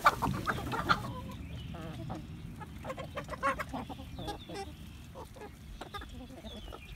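A flock of chickens clucking as they peck at scattered feed: many short, overlapping calls, busiest in the first second.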